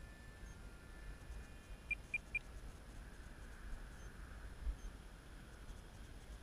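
Low wind rumble on the onboard camera of a small RC flying wing in flight, with a faint thin whine from its electric motor. About two seconds in come three quick high beeps.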